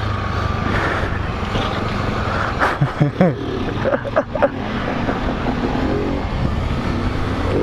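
Motorcycle engine running at low road speed, heard from on board the rider's own Honda XRE 300, with a nearby motorcycle and wind rush over the microphone. A few short sharp sounds come around three to four and a half seconds in.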